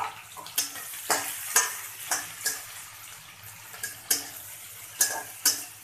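Sliced onions frying in oil in a steel kadhai with a steady sizzle, stirred with a spatula that scrapes and clacks against the pan at irregular intervals.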